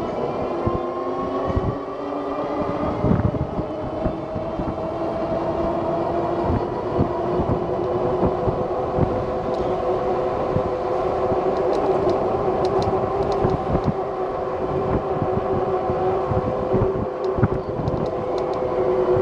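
Electric bike's rear hub motor whining steadily under way, with wind buffeting and road rumble on the microphone.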